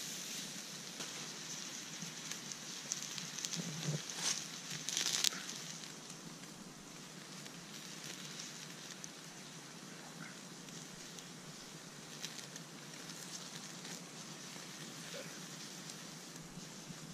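Steak and a pan of buttered mushrooms and onions sizzling on a grill grate over a wood campfire, with the fire crackling. There is a steady hiss, with a few louder crackles and pops about four to five seconds in.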